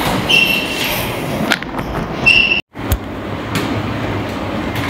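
Elliptical cross-trainer in use: a steady whirring rumble from the flywheel and linkage as the pedals cycle, with a couple of short high squeaks and light clacks.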